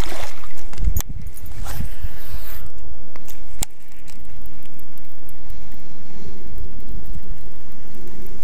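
Wind buffeting the microphone in a steady low rumble, with a splash at the very start as a small bass is tossed back into the pond and a single sharp click a little over three and a half seconds in.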